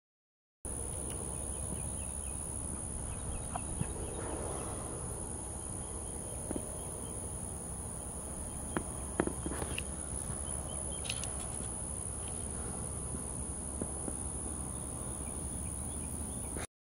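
Outdoor ambience with a steady, high-pitched insect drone, broken by a few faint clicks and short chirps about halfway through.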